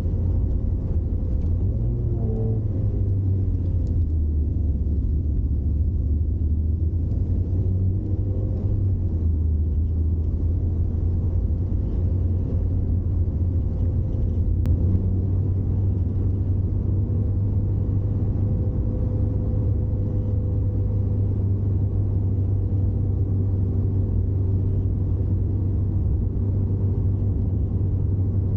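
Steady low rumble of a road vehicle's engine and road noise, heard from inside the moving vehicle.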